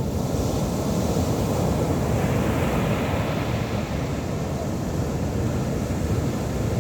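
Big ocean waves breaking on a beach: a loud, steady rushing of surf.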